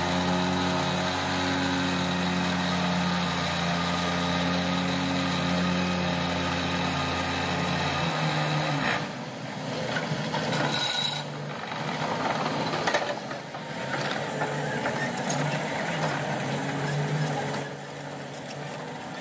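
Excavator diesel engines running steadily with a low drone. About eight seconds in the deepest part of the drone drops away, leaving a lighter machine rumble, and a few sharp knocks come near the end.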